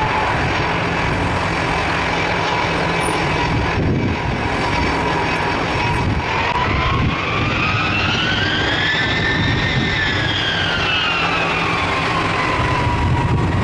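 Ilyushin Il-76 four-engine jet transport on the taxiway: a steady jet rumble and hiss with an engine whine that rises in pitch about halfway through, peaks, and falls back near the end as the engines spool up and back down.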